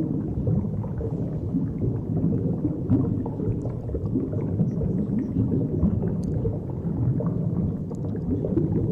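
Steady low underwater rumble, the muffled water ambience picked up by an underwater camera moving through a sunken wreck.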